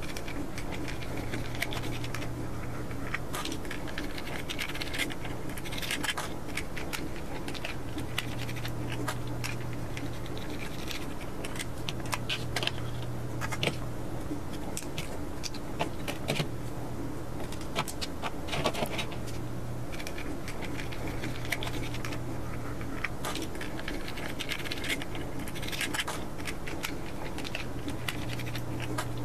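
Precision screwdriver backing out tiny M2 screws from a 3D-printed ABS watch case: scattered small clicks, scrapes and light plastic handling noises, with small metal screws set down on the table.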